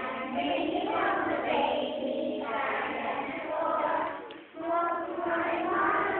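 A class of kindergarten children singing together as a choir, with a short break in the singing about four and a half seconds in.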